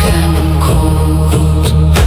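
Dark Nordic-style ritual ambient music: a sustained low drone with chant-like voices and a few soft percussive hits.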